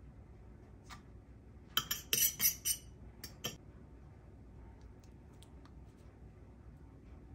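A quick run of sharp clinks and knocks against a glass baking dish about two seconds in, with one more a second later, as grated parmesan is tipped from a bowl and spread over the bottom of the dish.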